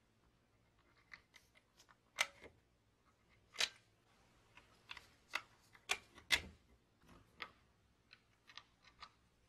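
Irregular light clicks and taps of hard objects being handled, a dozen or so spread unevenly, the sharpest around two, three and a half, and six seconds in.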